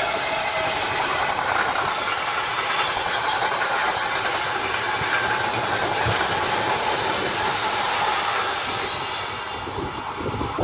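A train passing at speed, its wheels running over the rails with a clickety-clack. The sound eases off about nine seconds in as the train moves away.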